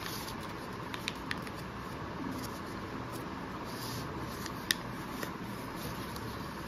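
Square of origami paper being folded and creased by hand: soft paper rustling with a few crisp clicks, the sharpest about two-thirds of the way through, over a steady background hiss.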